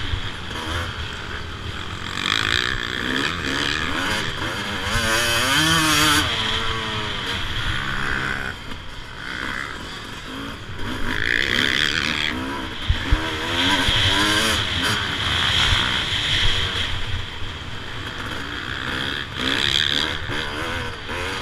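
2007 Suzuki RM 250 two-stroke single-cylinder motocross engine under riding load, its pitch rising and falling again and again as the throttle is opened and closed through the corners.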